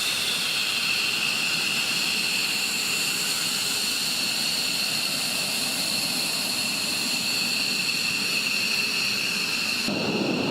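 Fighter jet engines running steadily: a loud, even hiss with a high whine. The sound changes abruptly near the end.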